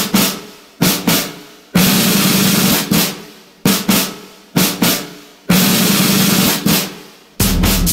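Music: a drum intro of single snare hits that ring out, alternating with sustained snare rolls, with a bass line coming in near the end.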